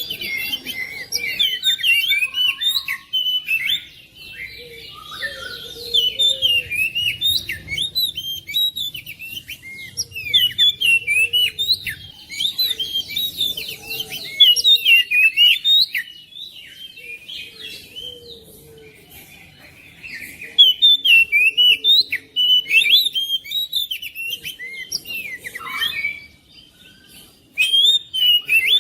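Oriental magpie-robin (kacer) singing: rapid, varied whistled notes and chirps in loud phrases of a few seconds, separated by short lulls.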